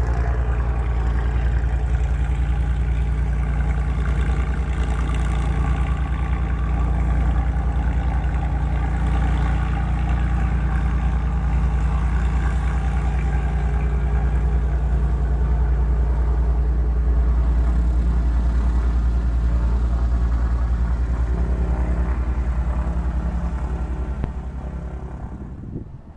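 Propeller aircraft engine running steadily with a low rumble and a steady drone, fading away near the end.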